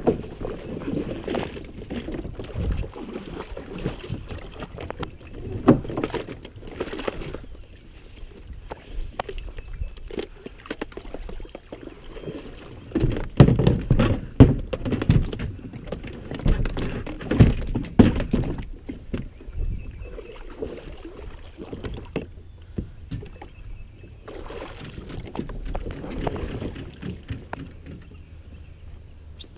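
Knocks, bumps and clatter of gear being handled aboard a plastic fishing kayak on the water, irregular throughout, with a louder stretch of knocks about halfway through.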